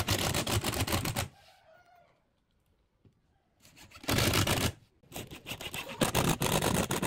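Cordless impact driver hammering screws into a pine board, in three bursts of rapid clatter. The first ends about a second in, a short one comes around four seconds in, and a longer one runs from about five seconds in.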